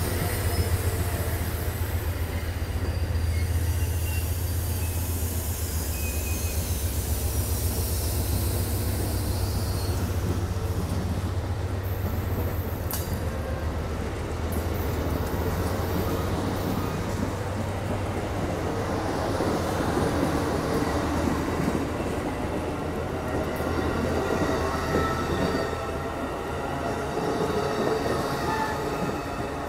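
Amtrak bi-level passenger cars rolling past as the train pulls out: a steady low rumble of steel wheels on the rails, with thin high wheel squeal in the first several seconds and a few brief clanks along the way.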